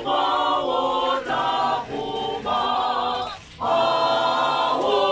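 A choir of many voices singing unaccompanied in long held phrases, with a brief pause between phrases about three and a half seconds in.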